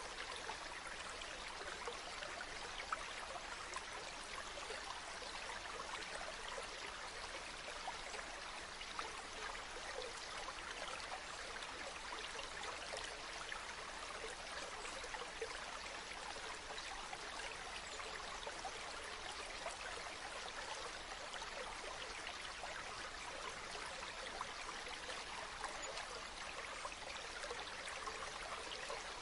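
River water running steadily, an even rushing sound dotted with small trickling splashes.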